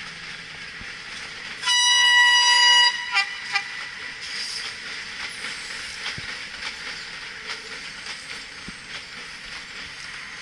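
Train horn sounding one loud, steady note for about a second, then the steady running noise of a train.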